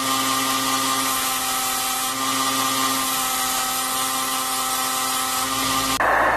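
Belt grinder running steadily, with a hum of several tones over a hiss, as a steel knife blade is held to its abrasive belt. It cuts off abruptly near the end.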